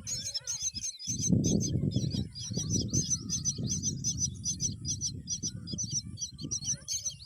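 Myna nestlings calling in a fast, continuous run of high chirps, about five or six a second, the begging calls of chicks at feeding. A low rumble sits under them, strongest about a second in.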